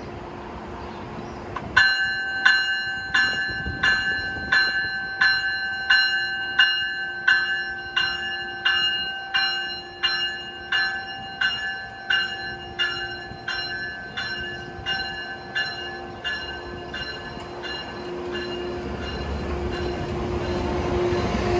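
Metrolink diesel locomotive's bell ringing steadily, about one and a half strokes a second, as the train pulls out; it starts about two seconds in and fades away near the end. Under it a steady engine hum, with the rumble of the rolling train growing louder toward the end.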